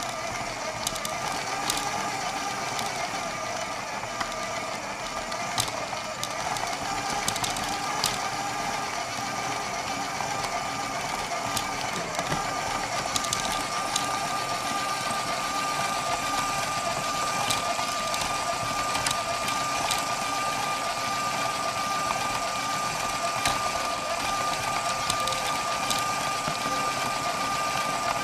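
LEGO Powered Up electric motor running steadily with a constant high whine as it drives a plastic brick conveyor-belt terrain, with scattered light plastic clicks.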